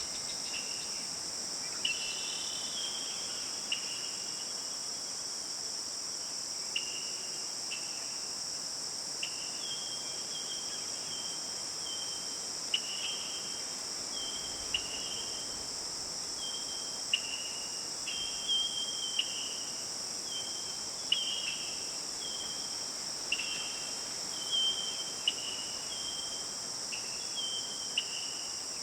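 A steady, high-pitched chorus of crickets or similar insects, with short bird calls repeated every second or two.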